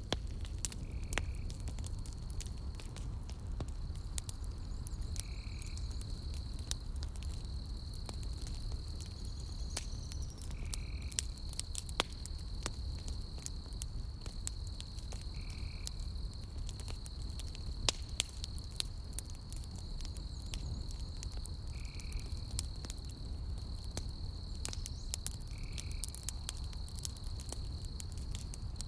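Campfire burning with scattered crackles and pops over a low rumble. A steady high trill runs throughout, and a short lower call repeats about every five seconds.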